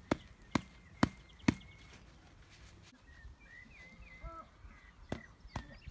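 Four sharp knocks about half a second apart, then two more near the end, with small birds chirping in between.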